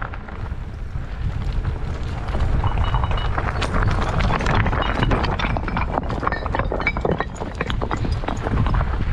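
Mountain bike rattling and crunching over a rocky, gravelly trail, with many quick clicks and clatters. Wind rumbles on the microphone underneath.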